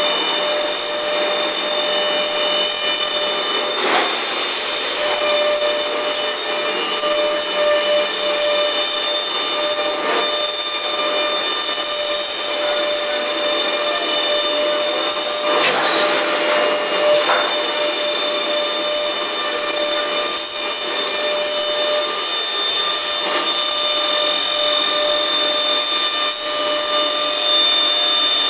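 Multi-spindle PCB CNC drilling and routing machine running: high-speed spindles give a steady whine of several high tones over the hiss of the cutters working through circuit-board panels. A few short bursts of louder cutting noise break in, the longest about sixteen seconds in.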